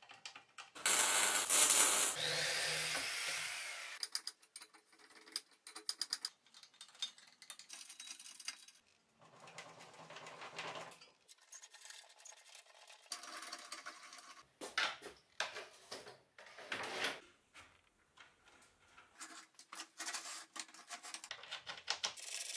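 Workshop assembly noise: steel parts and hand tools clinking, knocking and scraping irregularly, with two short runs of a small power tool, one about a second in and one near the middle.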